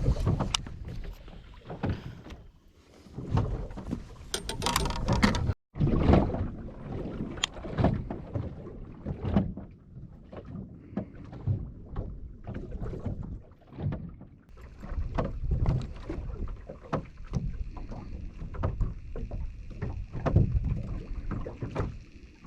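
Wind buffeting the microphone aboard a small fishing boat at sea, with scattered knocks and a short break in the sound about five and a half seconds in.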